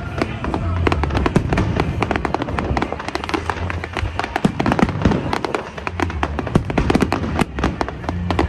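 Fireworks display in full barrage: many sharp bangs and crackles a second, with no let-up.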